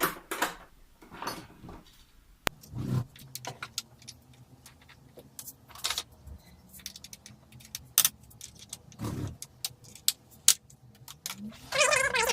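Metal hand tools and bolts clicking and clinking in irregular knocks while Allen-key bolts are worked loose on a motorcycle. Near the end a wavering, pitched squeal-like sound begins.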